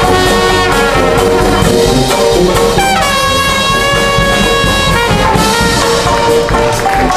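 Live classic jazz band playing with horns over a steady rhythm section. A horn slides up into one long note about three seconds in and holds it for about two seconds before the band moves on.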